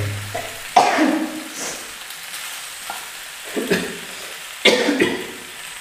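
Macaroni frying in a pan with a steady sizzle, stirred with a spatula that scrapes and knocks against the pan a few times.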